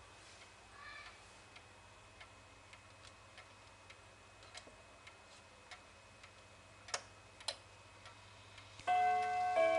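Girod octagonal wall clock ticking evenly, a little under two ticks a second, with two louder clicks about seven seconds in. Near the end its chime starts striking: several ringing tones that overlap and hang on.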